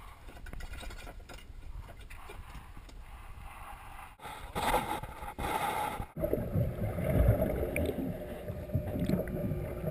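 Low wind and water noise on the deck of a small boat. After a cut a few seconds in, a louder rushing hiss lasts about a second and a half. Then comes the muffled, low sound of the sea heard underwater through a camera's housing.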